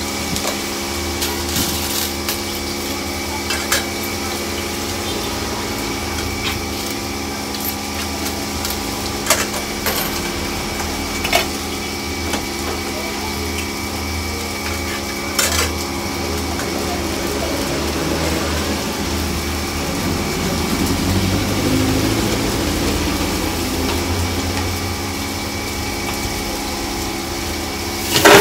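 Metal ladle and wire spider strainer clinking and scraping against a large aluminium wok while pork pieces deep-fry in the oil, with a few sharp clicks over a steady mechanical hum. A sudden loud burst of noise comes right at the end.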